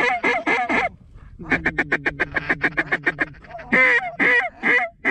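Mallard duck calls blown in quick quacking runs. A short run of quacks comes first, then a very fast, even feeding chatter of short notes, then louder single quacks near the end.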